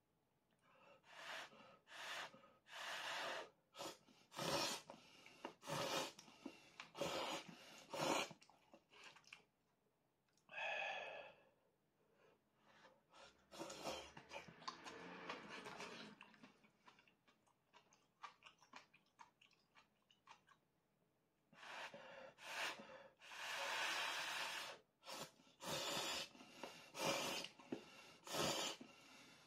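A person slurping instant ramen noodles in repeated short bursts, with chewing in between. The slurps come in two runs, one early and one in the last third, with a quieter chewing stretch in the middle.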